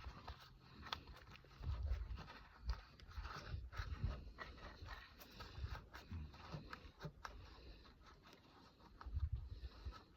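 Faint handling noise of gloved hands pressing epoxy putty into an engine's cylinder head: scattered light clicks and taps, with a few short low thumps about two seconds in and again near the end.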